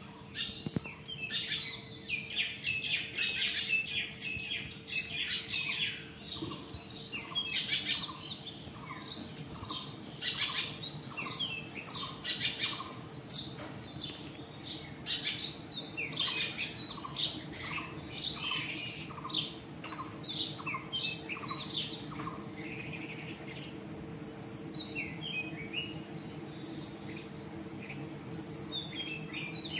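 Birds chirping and calling over and over, with a run of short, evenly repeated notes through the middle. Beneath them, a steady hum of a swarm of honeybees flying around their comb, stirred up by smoke.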